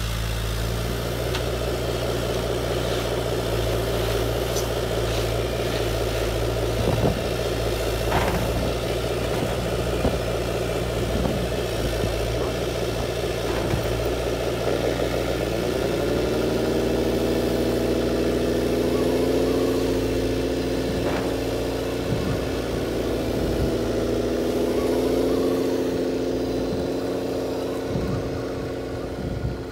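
Radio-controlled heavy construction models running: a steady low motor hum with a few short knocks. About halfway through, a whine glides up in pitch and then holds steady until it stops near the end.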